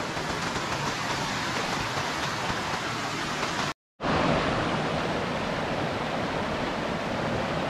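Creek water rushing over rocks in a steady, even rush. It breaks off for a moment about halfway through and comes back slightly louder.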